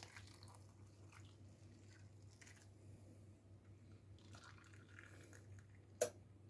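Very faint trickling and handling noises as very hot water is poured onto instant mashed potato and butter in a container, over a low steady hum, with one sharp click about six seconds in.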